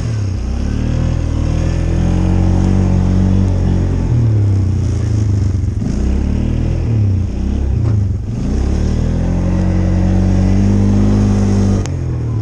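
Small vehicle engine driven through deep snow, revving up and easing off as it goes, with its pitch dropping about four seconds in and again around eight seconds in.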